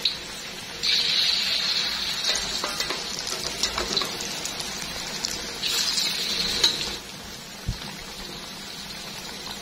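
Battered potato sticks deep-frying in a steel wok of hot oil: a steady sizzle that swells louder twice, with a few light metal clicks from the tongs.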